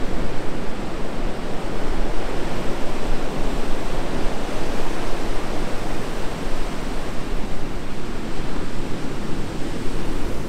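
Steady rushing noise of surf and wind on an ocean beach.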